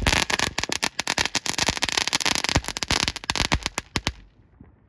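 A small crackling firework going off: a fast, dense run of sharp pops and crackles that stops suddenly about four seconds in.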